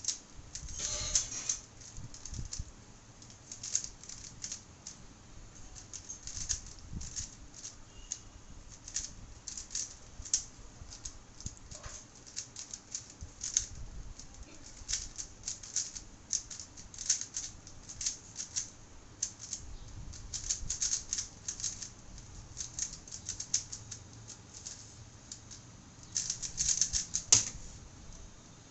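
A 3x3 speedcube being turned rapidly during a timed solve: quick plastic clicking and clacking of layer turns in uneven flurries, with a dense burst of turns near the end.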